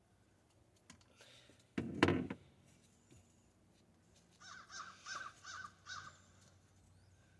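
A bird cawing, five quick calls in a row a little past halfway, after a short loud noise about two seconds in.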